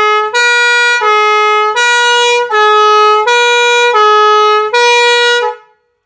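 Electric-compressor air horn set sounding a police-style two-tone, steadily alternating between a higher and a lower note about every 0.7 seconds. It is loud and cuts off near the end.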